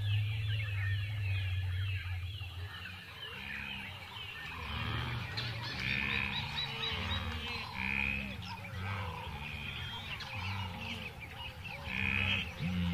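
A flock of flamingos honking, with many calls overlapping and a few louder honks standing out every couple of seconds.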